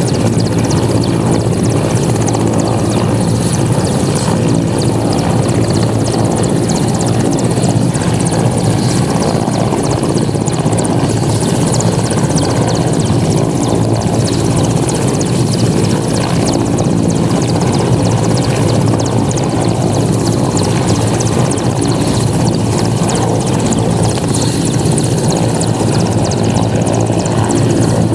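Helicopter flying, its rotor and engine noise steady throughout.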